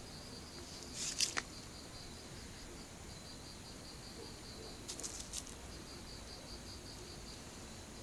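Insects chirping in a steady high-pitched rhythm of about three to four chirps a second. Two brief bursts of rustling and scraping come about a second in and again about five seconds in.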